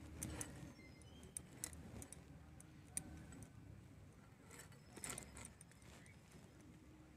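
Faint, scattered clicks and scrapes of small river fish being cut on a boti, a curved blade fixed in a wooden base, with a short cluster of clicks about five seconds in.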